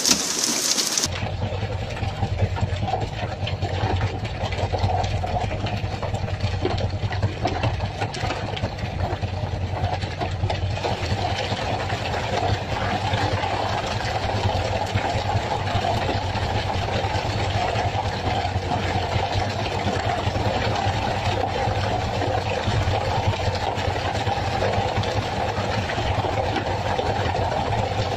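An engine running steadily at one speed, a low hum that sets in about a second in.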